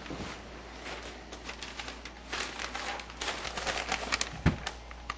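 Newspaper pages rustling and crackling as they are opened and handled, with a dull thump near the end.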